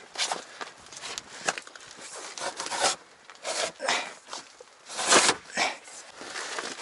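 Aluminium-edged floor panels of an inflatable boat being slid and pushed into place: a series of irregular scrapes and knocks against the PVC hull and the panel edges, the loudest about five seconds in.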